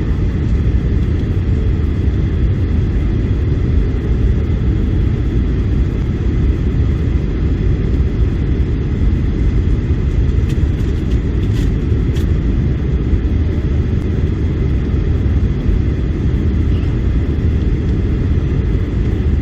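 Steady low rumble of a Boeing 737-800's engines and rushing air, heard inside the passenger cabin in flight, with faint thin whine tones above it.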